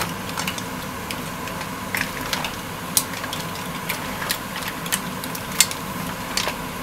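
Mussel shells clicking and clattering against each other and the pan as they are stirred with wooden spatulas: irregular sharp clicks, the loudest about three and five and a half seconds in, over a steady background hum.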